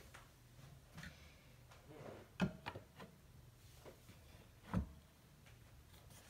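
Whetstones being handled and set on a stone holder: scattered light knocks and clicks, with two sharper knocks about two and a half and five seconds in.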